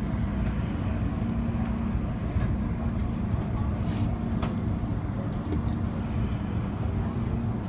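MTR East Rail Line MLR electric train heard from inside the carriage, running along a station platform as it comes in to stop: a steady low rumble with a constant low hum. A couple of faint clicks come about four seconds in.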